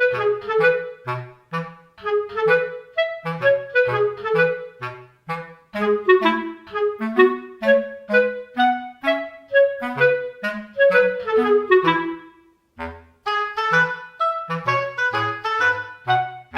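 Background music: a bouncy tune of short woodwind notes, clarinet-like, over a plodding bass line. It breaks off for about a second past the middle, then starts again.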